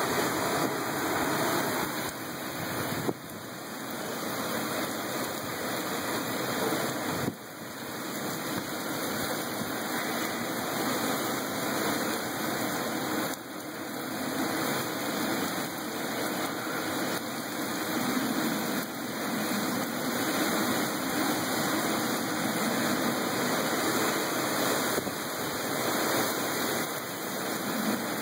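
Heavy rain pouring down in strong, gusting storm wind: a steady rushing hiss whose loudness rises and falls, with a few sudden brief dips.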